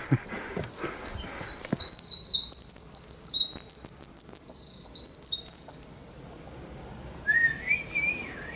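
A songbird singing a fast, high run of quickly repeated downward-sweeping notes for about four and a half seconds, then stopping; near the end a softer, lower wavering whistle follows.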